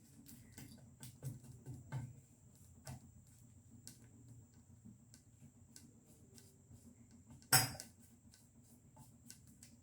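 Faint scattered taps and clinks of kitchen dishes and utensils being handled, with one louder clatter about seven and a half seconds in.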